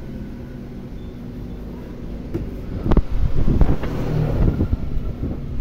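Electric hair clippers buzzing steadily during a fade haircut, with louder low rumbling and knocking from about three seconds in.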